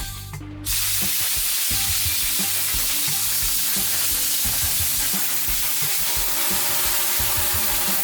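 Steady spraying hiss that starts just under a second in and keeps going, over background music.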